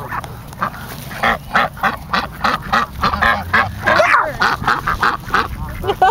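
A flock of domestic ducks quacking loudly and almost without pause, several short calls a second overlapping, as the birds crowd in to be fed.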